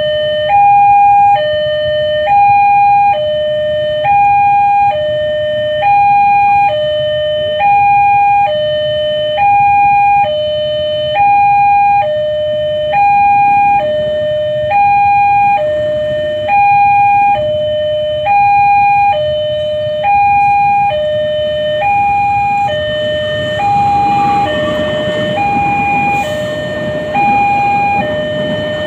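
Railway level-crossing warning alarm from the crossing's loudspeaker: an electronic two-tone signal alternating high and low in a steady, repeating pattern, warning that a train is coming. Near the end, the noise of a passenger train crossing rises beneath it.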